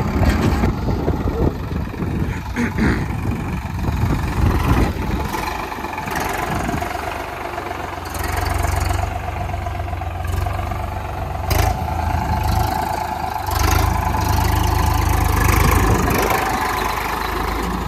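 Diesel engine of a farm tractor running as the tractor is manoeuvred slowly. Its low rumble swells and eases several times as the throttle changes.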